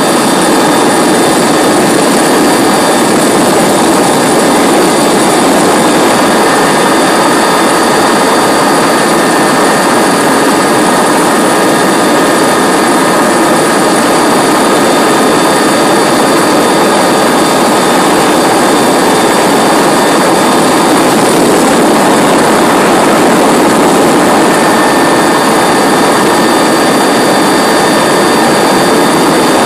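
Oryx military helicopter in steady cruise, heard from its open cabin door: a loud, even rush of rotor, turbine and air noise, with several steady high whine tones from its twin turboshaft engines over it.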